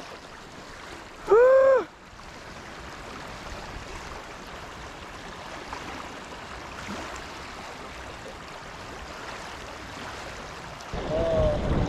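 Steady rush of a fast-flowing river current. About a second and a half in, a loud, short pitched sound rises and then falls, lasting about half a second. A voice comes in near the end.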